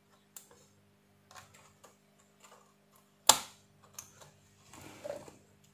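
Small scattered clicks and ticks of a circuit board being handled by hand while fingertips press on an IPM's freshly desoldered through-hole pins, with one sharp, much louder click a little over three seconds in.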